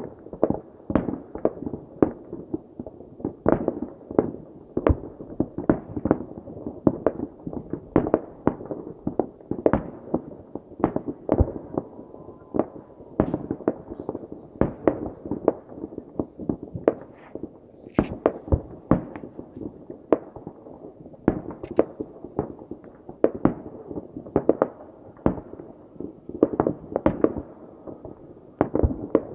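Fireworks going off from all around: an irregular, unbroken series of bangs, about one or two a second, over a steady rumble.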